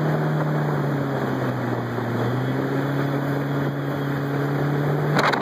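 Outboard jet motor running steadily under way with water and hull noise around it. Its pitch dips slightly about two seconds in and then rises again. Near the end a sharp knock comes, and the engine note drops away right after it.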